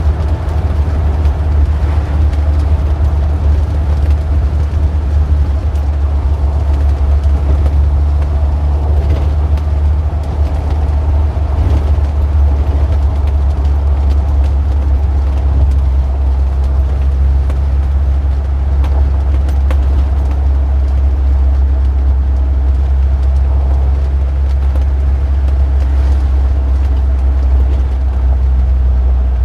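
Motor vehicle engine running with a steady, deep low rumble, its tone shifting slightly about halfway through.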